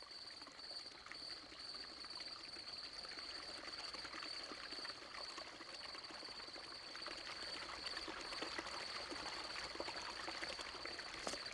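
Faint night ambience: water running and trickling, with a steady high insect trill throughout.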